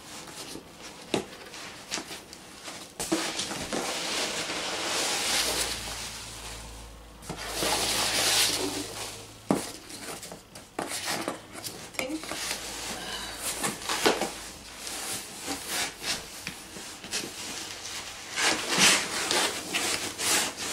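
Foam packing peanuts rustling and squeaking as hands dig through them in a cardboard box, with the cardboard scraping and knocking now and then as a box wedged inside is worked loose.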